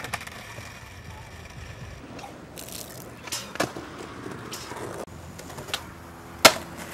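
A few sharp clacks of a skateboard's deck and wheels hitting the ground, spaced irregularly over a low background, the loudest about six and a half seconds in.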